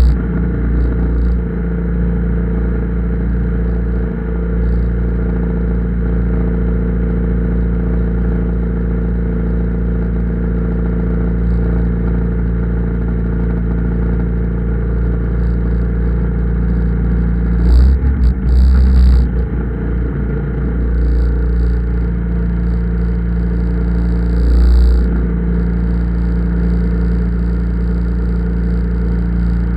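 Land Rover 300Tdi turbodiesel engine running steadily, heard from on the bonnet, with a few short louder bursts about two-thirds of the way through.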